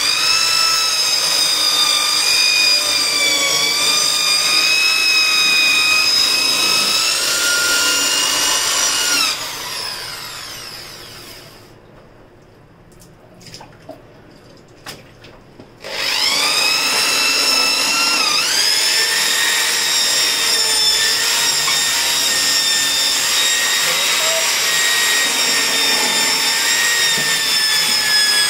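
Electric drill spinning a disc scrubbing brush against a ceramic washbasin, its motor whining steadily. About nine seconds in it winds down and stops, leaving a few light knocks. It starts again at about sixteen seconds, its pitch dips briefly a couple of seconds later, and then it runs on.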